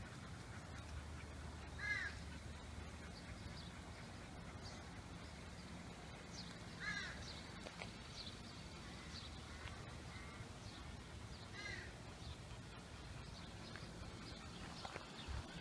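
A crow cawing three times, single harsh caws about five seconds apart.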